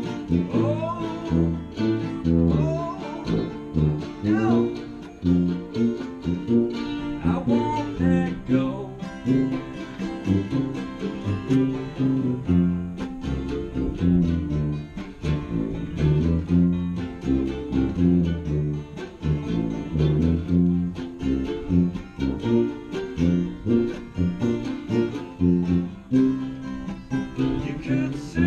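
Small acoustic string band playing live: guitar strumming over a tuba bass line in a steady beat, with a melody line that glides in pitch over the first several seconds.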